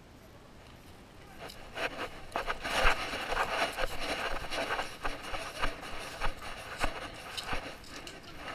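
Chest-mounted action camera jostling on a moving dog: fur and harness rubbing and scraping against the camera housing, with irregular knocks, starting about a second and a half in.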